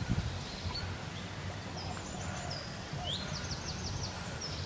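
Birds chirping, with a rapid high trill about three seconds in, over a steady low rumble and a brief knock at the start.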